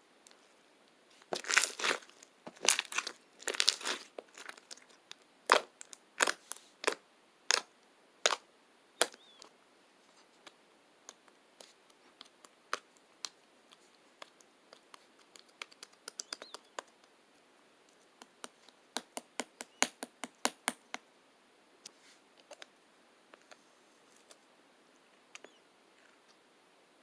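Irregular sharp clicks and crackles, like something being handled, thickest in the first few seconds and in a quick run about twenty seconds in, with sparse clicks between.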